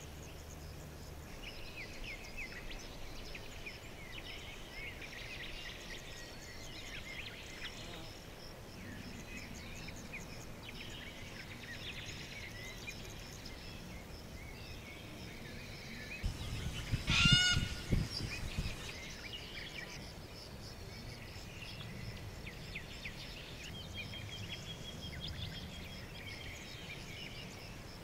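Small birds chirping throughout over a steady high-pitched buzz, with one loud, harsh bird call lasting about two seconds past the middle.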